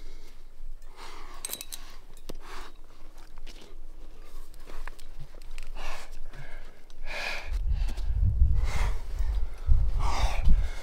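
A climber breathing hard through a strenuous finger-crack move, with short, forceful exhalations every second or two. A low rumble joins in during the second half.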